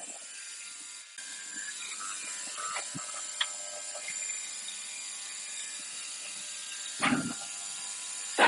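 Faint scattered clicks and a short knock over a steady background hiss, as of parts being handled on a bench. A loud, evenly pulsing mechanical whirr starts right at the end.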